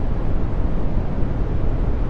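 Brown noise: a steady, deep, soft rush of random noise, strongest in the bass and thinning out toward the highs, with no changes.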